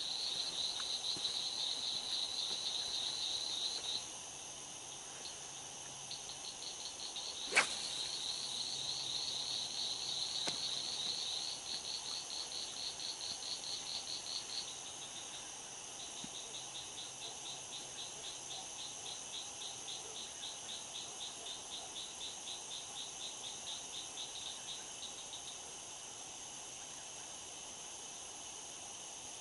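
Night insects calling: trains of rapid, even chirping pulses that start and stop several times over a steady high-pitched drone. A single sharp click about eight seconds in.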